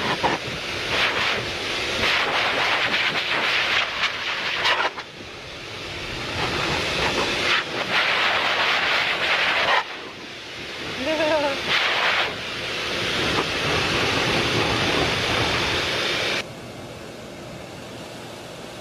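A vacuum cleaner with a grooming brush attachment running over a husky's coat, its rushing noise dipping and returning as it is pressed and lifted. About eleven seconds in, another husky gives a short wavering howl. Near the end the sound cuts to the quieter, even hiss of a garden hose nozzle spraying onto grass.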